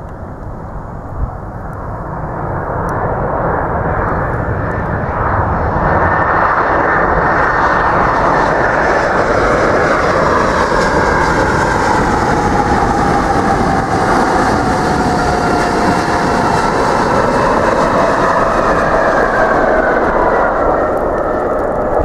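McDonnell Douglas MD-11's three Pratt & Whitney PW4462 turbofans as the jet passes close by: a heavy roar that builds over the first few seconds, then holds loud, with a whine that sweeps down in pitch and then back up.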